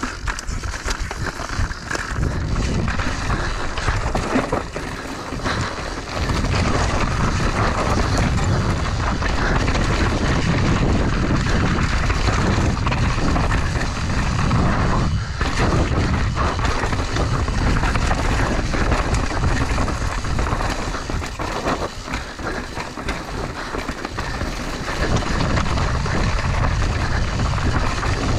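Mountain bike ridden fast down rocky singletrack: tyres rolling and crunching over loose rock and dirt, with the bike rattling over the bumps and wind rushing over the microphone. The noise is continuous, easing briefly about halfway through.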